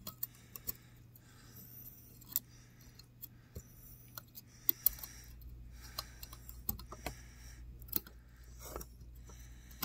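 Light, irregular clicks and small scrapes of fingers working a tiny metal retaining clip onto the shaft of a laptop fan motor, over a low steady hum.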